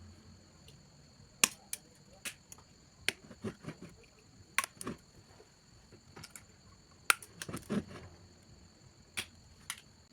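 Scattered light clicks and taps of small electronic parts and tools being handled on a workbench, irregular, about fifteen in all, over a faint steady high-pitched electrical whine.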